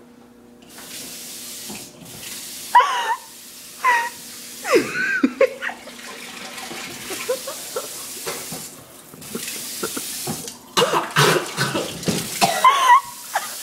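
Kitchen sink tap running, the water starting about a second in, with a few short vocal sounds over it.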